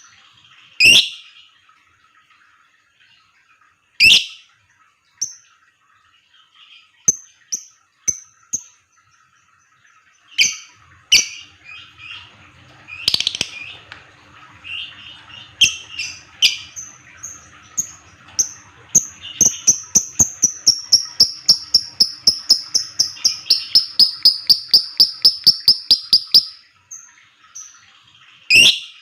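Lovebird calling: scattered sharp, shrill chirps, then a long fast chattering run of evenly repeated high notes, about five or six a second for some seven seconds, starting about two-thirds in, the long 'ngekek' of a fighter lovebird in song.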